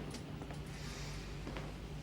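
Steady low machinery hum of a warship at her berth, with a faint click about one and a half seconds in.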